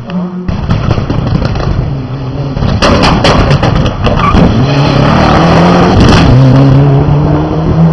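Rally car driven hard on a closed stage, approaching and passing close with its engine at high revs, and a cluster of sharp cracks about three seconds in.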